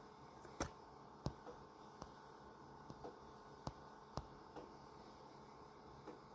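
Faint room tone broken by about eight short, sharp clicks and taps at irregular moments.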